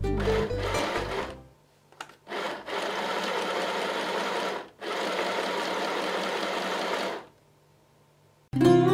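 Mini electric sewing machine running and stitching fabric in two runs of a couple of seconds each, with a short stop between them. Background music fades out at the start and comes back near the end.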